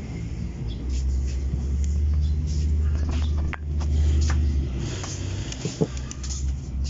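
A low rumble that swells for the first few seconds and then eases, with small clicks and rustles from hands handling the fan stator's wires and cable ties.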